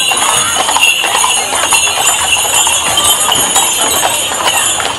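Hooves of draught horses clip-clopping on an asphalt street as horse-drawn carts pass close by, with a steady jingling of harness bells and some voices in the background.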